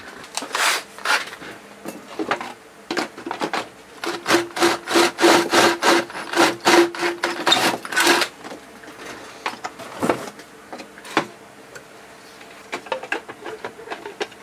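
Cordless drill working into the housing of an outdoor light fixture for about five seconds midway: a run of rasping, grinding strokes over a steady motor whine. A few separate handling knocks follow.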